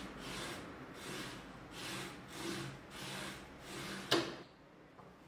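A screw tip set in a wooden block scratching along a fibreboard panel to score a line parallel to its edge, in repeated scraping strokes a little under two a second. A sharp click just after four seconds is the loudest sound, and it is quieter after that.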